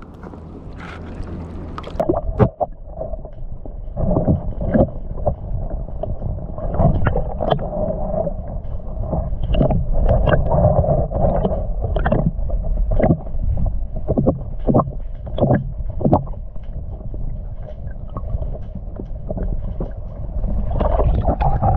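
Sea water sloshing around a camera held just under the surface, heard muffled with a steady low rumble and irregular knocks and clicks, as a hand holds a bass by the lip in the water. A sharp knock comes about two seconds in.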